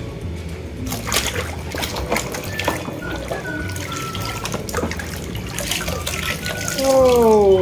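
Water splashing and sloshing as a toy loading truck is swished and scrubbed by hand in a basin of muddy water, over light background music with a whistled tune. Near the end a loud falling tone sweeps down.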